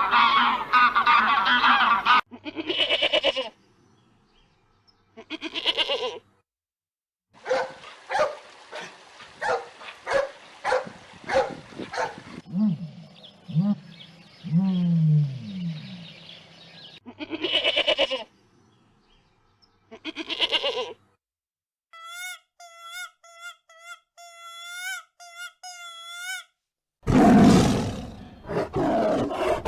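A string of different animal calls, one clip after another: short pitched calls, a run of quick pulsed calls, low sliding calls, a stretch of high whistled bird-like chirps, and a loud rough call near the end.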